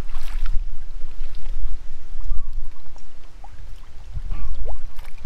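Water splashing and sloshing close to the microphone, with the most splashing in the first half second, over a heavy low rumble.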